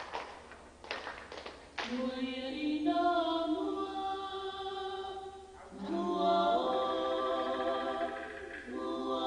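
A few sharp hand strikes, then a group of Samoan performers singing unaccompanied in harmony from about two seconds in, in long held phrases with short breaks between them.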